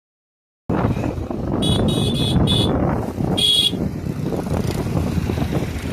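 Road traffic running with vehicle horns honking: three quick toots in a row, then a longer one about a second later.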